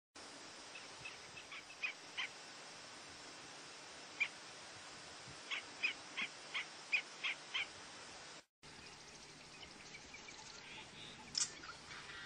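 American avocet calling: short sharp calls, a few scattered at first, then a run of about six evenly spaced at roughly three a second. The sound drops out completely for a moment about two-thirds of the way through, and fainter calls follow.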